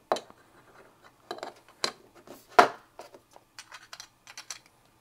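Plastic jigsaw-shaped puzzle blocks being handled, set down and slid together on a table: a run of clicks and knocks, the sharpest about halfway through, then a quick patter of small clicks as the pieces are fitted.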